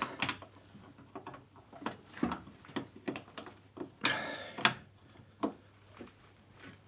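Ratchet wrench with a 17 mm socket clicking in irregular short runs as the mounting bolts of a front suspension strut-bar bracket are tightened, with a longer rasping run about four seconds in.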